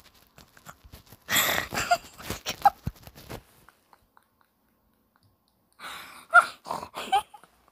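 One person's stifled, breathy laughter in two bouts, airy bursts with short squeaky pitches, with a silent gap of about two seconds between them.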